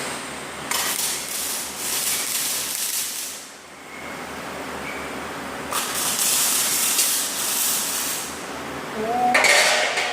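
TIG welding arc hissing in two bursts of about three seconds each, stopping and starting again between them.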